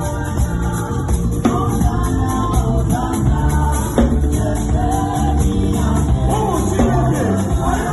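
Live gospel praise band playing: drum kit, piano and bass guitar, with singing.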